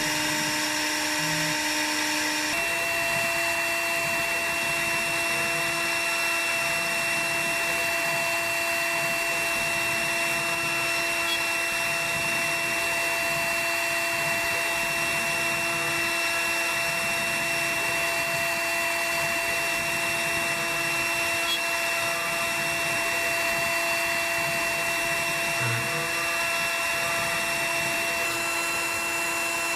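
CNC router milling a wooden blank with a 6 mm radius cutter: the spindle runs with a steady whine over the hiss of cutting. Its pitch steps slightly higher a couple of seconds in.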